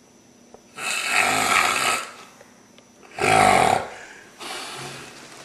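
A person snoring: two loud rasping breaths about two seconds apart, the second with a low rattle, then a quieter breath near the end.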